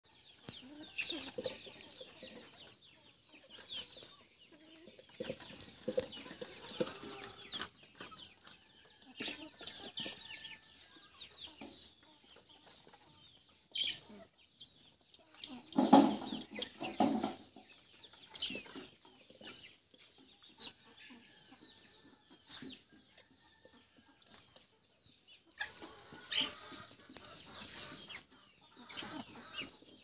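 Domestic hens clucking on and off, with scattered short clicks and knocks. There is a louder burst about halfway through.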